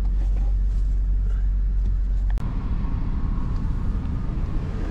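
Pickup truck's engine running, heard from inside the cab as a steady low hum. About halfway through it switches abruptly to the truck on the move, with a rougher rumble of engine and road noise.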